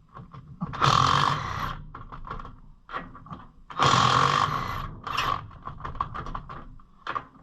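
Cordless impact wrench hammering on a stuck lug nut in two bursts of about a second each, one about a second in and one about four seconds in, with short clicks and rattles between them.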